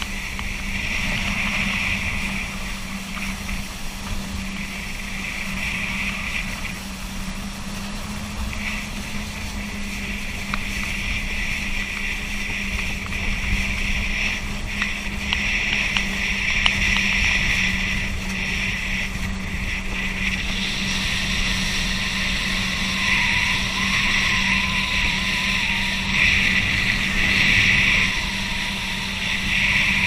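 Small motor craft running steadily at speed over open water, its engine a constant drone under rushing spray and wind on the microphone. A thin, slightly wavering higher whine joins in about two-thirds of the way through.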